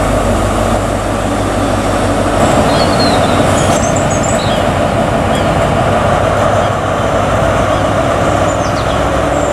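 MTU diesel engine of a Class 43 HST power car running steadily as the train moves slowly along the platform.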